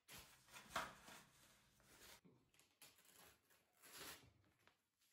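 Faint paper rustling and crinkling in short bursts, as paper is pulled out of a gift box by hand.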